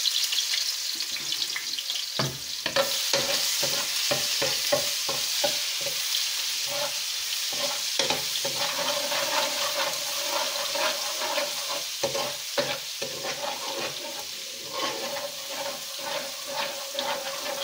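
Ground garlic paste sizzling in hot oil in a metal wok, with a spoon stirring it and repeatedly knocking and scraping against the pan. The garlic is frying toward a light golden brown.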